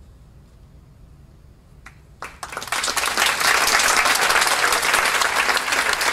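Audience applause breaks out about two seconds in and quickly swells to a loud, steady clapping, over a faint low hum of room tone before it.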